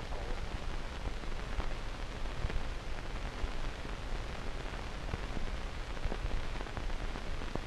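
Steady hiss of an open space-to-ground radio channel between transmissions, with a low hum underneath and scattered faint crackles.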